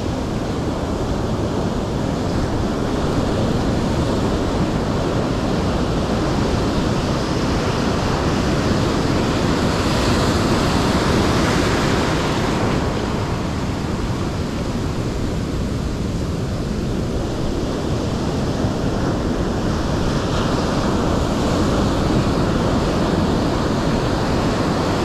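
Ocean surf breaking and washing up a sandy beach in a continuous rush, surging louder about ten seconds in and again about twenty seconds in.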